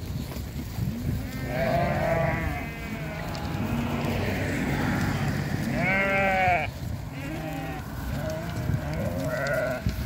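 A flock of fat-tailed sheep bleating: several calls at intervals, the loudest about six seconds in, over the low noise of the moving flock.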